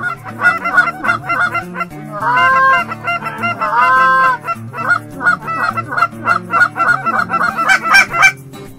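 Goose honks: a rapid run of short honks and clucks throughout, with two longer, drawn-out honks about two and three and a half seconds in. Background music with a low bass line runs underneath.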